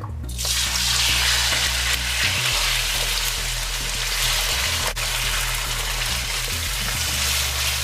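Cut-up chicken pieces dropped into hot oil in a wok, sizzling as they fry; the sizzle starts suddenly under a second in and holds steady. A single sharp click sounds about five seconds in.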